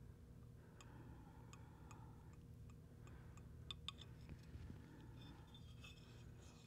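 Near silence: room tone with faint, evenly spaced ticks and two slightly louder clicks about four seconds in.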